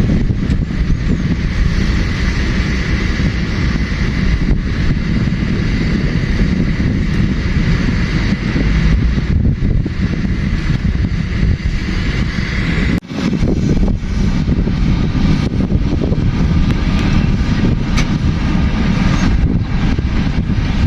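Heavy diesel construction machinery running steadily and loudly, with a brief drop in sound about 13 seconds in.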